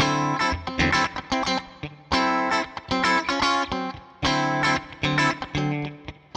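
Electric guitar with Zexcoil Legacy Signature P90-size pickups in coil-cut mode, played clean through a modelled Twin Reverb amp. A picked and strummed chord phrase restarts about every two seconds.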